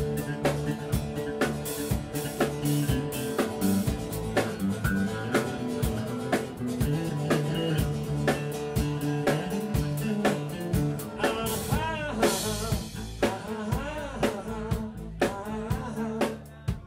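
Live band music: a drum kit keeps a steady beat of about two hits a second under strummed acoustic guitar. A cymbal crash comes about twelve seconds in, and the music falls away near the end.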